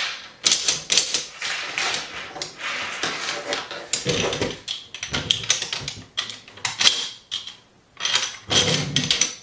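Steel parts of an M1 Garand's receiver and operating rod clicking and knocking irregularly as the barreled action is lifted, turned and set on a wooden bench during reassembly, with a couple of longer scrapes about four and eight and a half seconds in.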